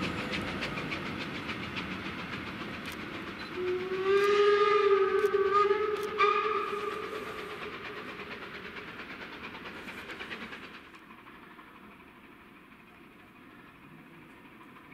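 Freight hopper wagons rolling past with wheel clatter, then a steam locomotive whistle blows a long blast followed by a short one about four seconds in. The train sound then fades as it moves away.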